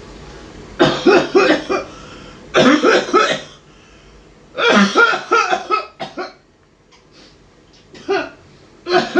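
A person coughing: three fits of several hard coughs each, then two single coughs near the end.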